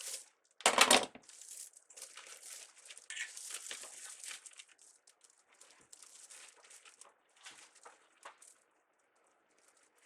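Plastic deco mesh and ribbon crinkling and rustling as they are handled and pulled through the wreath, with one loud rustle about a second in, then softer intermittent crinkling that dies away near the end.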